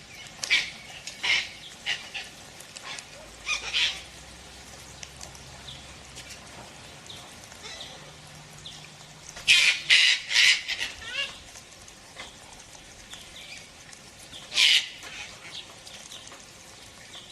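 Sulphur-crested cockatoos giving harsh screeching calls in short separate bursts. There are a few in the first four seconds, a loud cluster of three or four about ten seconds in, and one more near fifteen seconds.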